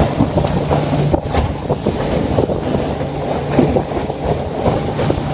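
Boat motor running steadily as a river boat travels, with wind buffeting the microphone.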